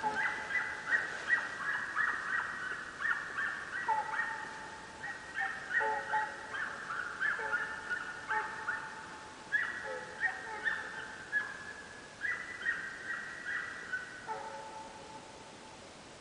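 Deer-hunting hounds baying on a run: rapid, overlapping yelps from at least two dogs at different pitches, several a second, that stop near the end.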